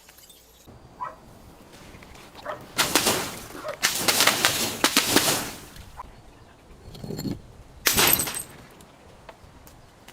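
Objects being crushed, crunching and cracking: a long run of crunching about three seconds in, then two shorter crunches near the end.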